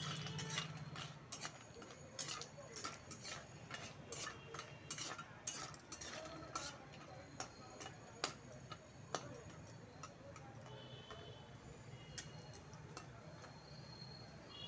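Spatula clinking and scraping against a kadhai while stirring badi (sun-dried lentil dumplings) frying in hot oil: many irregular clicks that thin out after about nine seconds.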